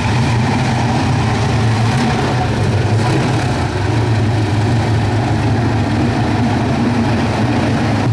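The Napier Railton's freshly rebuilt 24-litre Napier Lion W12 aero engine is running at low, steady revs as the car rolls slowly along. It makes a loud, deep, even note.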